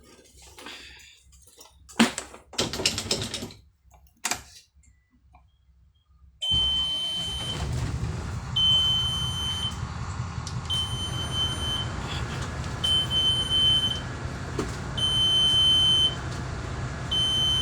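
A few clicks and rustles of handling. About six seconds in, a steady low vehicle rumble starts suddenly, and over it a high electronic warning beep repeats, about one second on and one second off.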